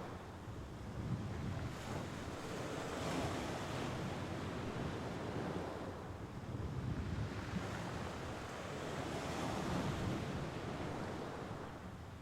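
Mediterranean Sea waves washing onto the shore, swelling and falling back in several surges.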